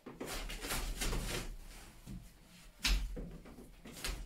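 Irregular scraping and knocking as a lintel is handled and lifted onto the top of a concrete block wall, with a heavier thud about three seconds in.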